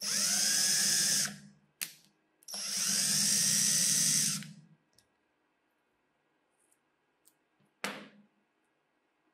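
Power drill running in two short bursts with its bit in a screw head in a pine board, each burst whining up to speed and winding down. A short click comes between the bursts, and a single scissors snip about eight seconds in.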